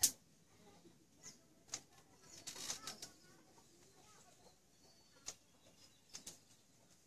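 Hands plucking wet fur from a scalded rabbit and flicking it off the fingers: scattered short, sharp snaps and rustles. The loudest comes right at the start, a cluster follows about two and a half to three seconds in, and a few more come later.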